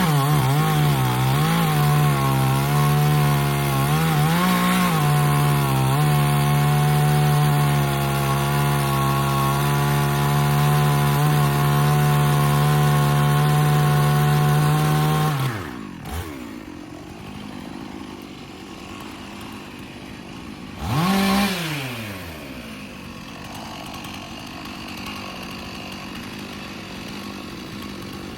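Two-stroke chainsaw cutting pecan wood at full throttle, its pitch dipping and recovering under load in the first few seconds. About halfway through it drops to idle, is blipped once briefly, and idles on.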